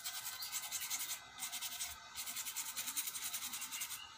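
A small brush scrubbing a laptop motherboard in rapid back-and-forth strokes, a scratchy rasp with two brief pauses, as flux residue left from hot-air reflow soldering is cleaned off.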